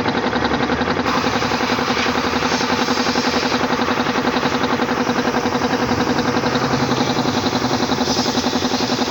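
Reciprocating piston air compressor running steadily, a rapid even chugging with a steady hum.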